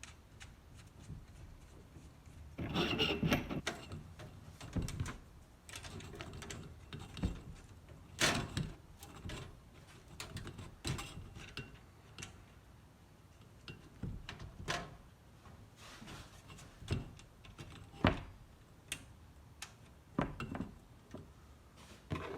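Intermittent clicks, clinks and knocks of metal hardware and hand tools as lock nuts are started onto the bolts, with a longer scraping, rattling stretch about three seconds in.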